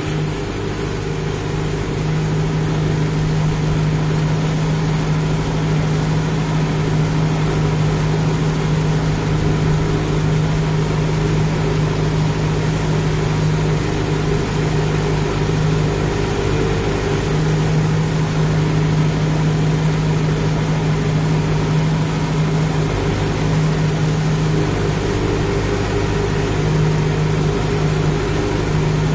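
Kubota MU5502 tractor's four-cylinder diesel engine running steadily under load while it drives a mud rotavator through a flooded paddy field, heard from the driver's seat. The engine note holds even throughout, with no revving.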